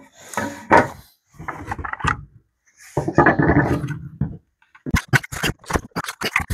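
Hard plastic battery housing being handled and pried apart: irregular scraping and rubbing of plastic on plastic, then a quick run of sharp clicks and snaps in the last second and a half as the casing is worked open.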